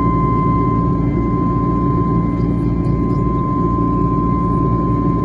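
Jet airliner cabin noise at cruise: a steady, loud rumble of engines and rushing air, with a thin steady whine running through it.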